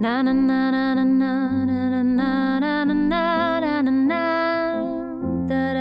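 A woman sings a wordless, wavering melody over sustained piano chords played on a keyboard. The chords step through the four-chord progression C, G, A minor, F, with the bass note changing about a second and a half in and again near the end.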